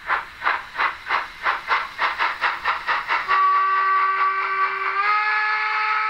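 Sound decoder of a Roco H0 model DB class 86 steam locomotive playing steam exhaust chuffs through its small loudspeaker, quickening from about two to about five a second. About three seconds in, the chuffs give way to a long steam whistle of several tones sounding together, which steps up in pitch about a second and a half later and keeps on sounding.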